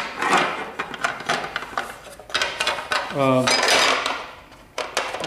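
Small metal hardware, a bolt with its metal washer, clinking and rattling as it is handled close to the microphone against a ceiling-fan blade, with bursts of handling rustle between the clicks.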